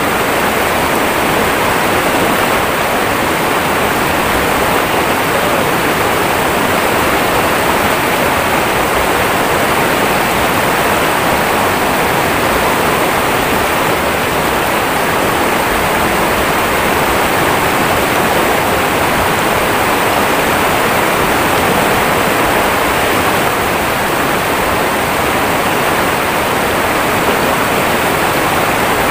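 River water rushing over a small rocky cascade right beside the microphone: a loud, steady, even rush with no breaks.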